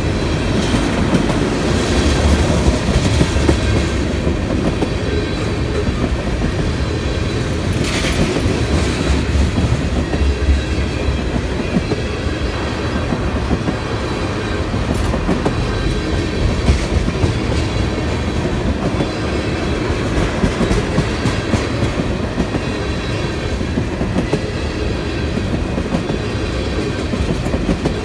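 Freight train of tank cars rolling past, a loud steady rumble of steel wheels on the rails, with one brief sharper noise about eight seconds in.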